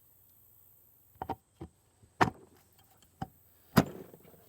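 A handful of sharp knocks and clicks from parts and tools being handled at the flywheel of a Johnson 15 hp outboard, the two loudest about two and four seconds in.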